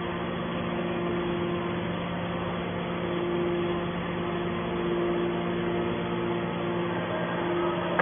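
TCM hydraulic metal scrap baler's power unit running with a steady hum. Its higher tone swells and fades a little.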